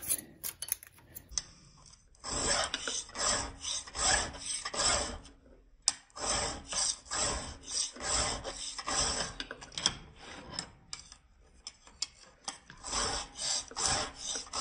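Flat file rasping back and forth across a chainsaw chain's rakers (depth gauges) through a depth-gauge tool, in runs of quick strokes with a few short pauses: the rakers are being filed down because they sit too high.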